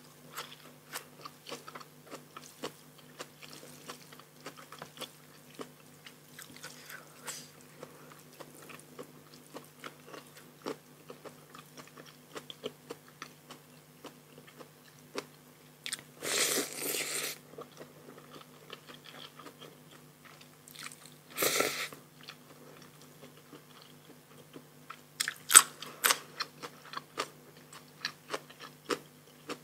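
A person eating a spicy pounded rice-noodle salad with raw shrimp and fresh vegetables close to the microphone: many small crunching bites and chewing. There are two louder, longer noisy sounds about halfway through, and a burst of sharper crunches near the end, over a steady low hum.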